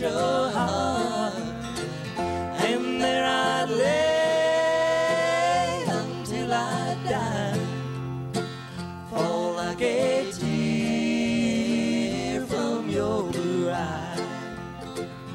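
Live bluegrass band playing a break in a slow song: picked mandolin, guitar and bass, with a lead line that slides and bends between notes.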